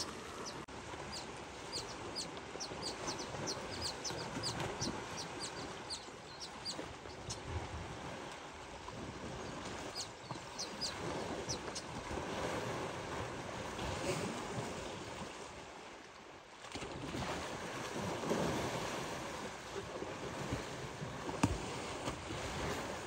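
Water sloshing and splashing as a herd of African elephants bathes and wrestles in a muddy dam, the sound swelling and fading unevenly. Birds chirp over it in short high calls, mostly in the first half.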